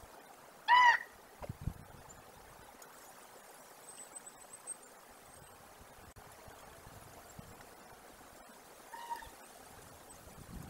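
Two short honking animal calls, a loud one about a second in and a fainter one near the end, with faint high chirps in between.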